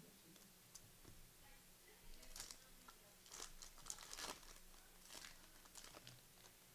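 Faint crinkling and tearing of trading-card pack wrappers being ripped open and handled, in a few short scattered bursts.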